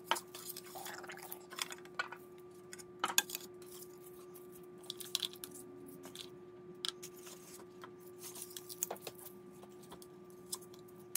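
Small decorations being taken off a tiered tray and set down: scattered light clicks, taps and clinks at irregular intervals. A faint steady hum runs underneath.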